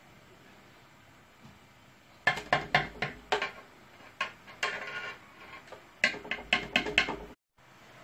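A metal skimmer clinking and scraping against an aluminium cooking pot and ceramic serving plates while sauce is spooned over roast chicken. A run of sharp clinks starts about two seconds in and continues almost to the end.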